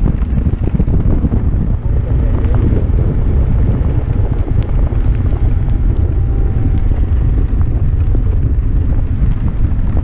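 Motorcycle riding at speed on a wet road in the rain: heavy wind buffeting on the camera microphone over the running engine and the tyres on the wet surface.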